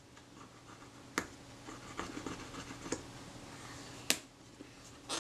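Wooden toothpick scraping solvent-softened adhesive off a camera's metal base plate, a scratchy rasp broken by a few sharp clicks of the pick against the metal, the loudest about four seconds in.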